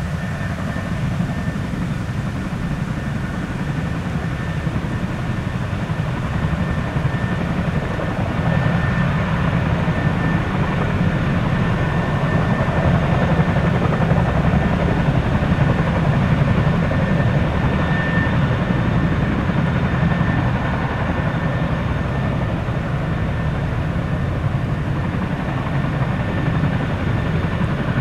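Boeing CH-47 Chinook tandem-rotor helicopter with its twin turboshaft engines running: a rapid low rotor beat under a steady high turbine whine, growing a little louder about eight seconds in.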